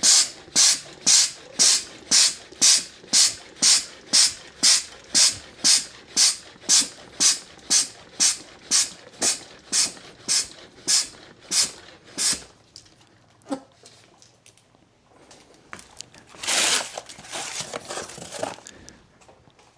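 Hand-pumped oil extractor being pumped to build vacuum for drawing engine oil up the dipstick tube: a hissing puff of air with each stroke, about two a second, growing fainter until the pumping stops about twelve seconds in. A shorter, softer hissing rush follows a few seconds before the end.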